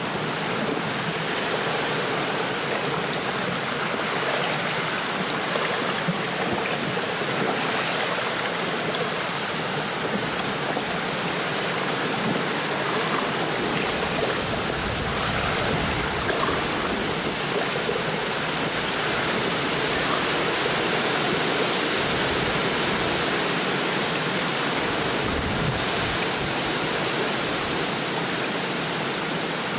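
Steady wind rustling through lakeside reeds with small waves lapping, a dense even rush that swells a little in a gust past the middle.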